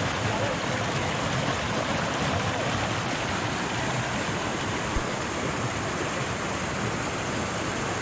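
Steady rush of a rainforest creek cascading into a pool, an even wash of water noise. A single light knock about five seconds in.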